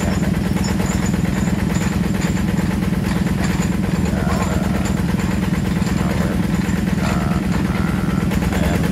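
Engine of a water-well drilling rig running steadily at an even speed, a constant low drone.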